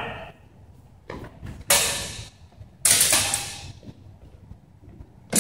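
Steel swords striking in a bout: a few light clicks, then two loud, sharp clashes about a second apart, each ringing out in the gym's echo.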